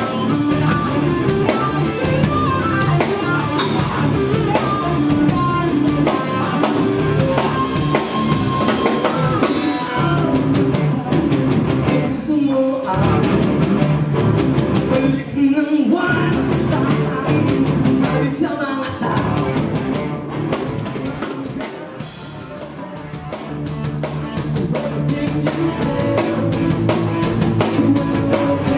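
A live rock band playing: drum kit and electric guitars with a lead singer. The band drops back quieter about three-quarters of the way through, then builds up again.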